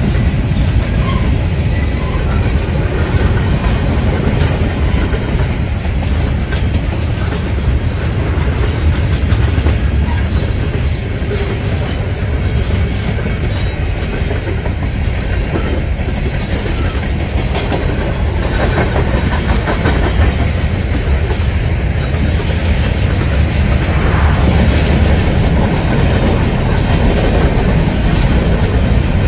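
Freight cars rolling past: a steady heavy rumble of steel wheels on rail, with a continuous clickety-clack of wheel sets clicking over the rail joints.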